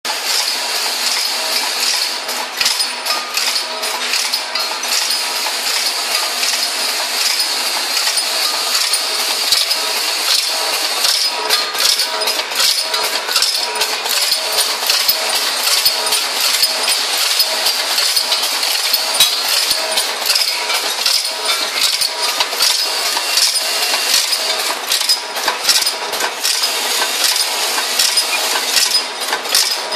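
Automatic screw counting and packing machine running: a dense, continuous metallic clinking of small screws rattling and dropping through it.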